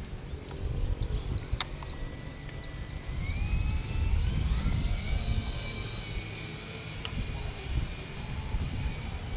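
A motor's whine that rises in pitch over about two seconds and then holds steady, over a constant low rumble, with a few light clicks near the start.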